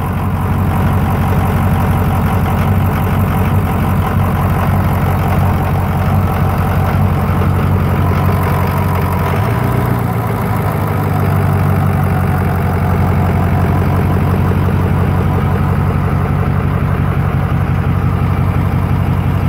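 Freshly rebuilt Ford 6.0L Power Stroke V8 turbo-diesel idling steadily on its first start after the rebuild, running with its intake tube open and no air filter fitted.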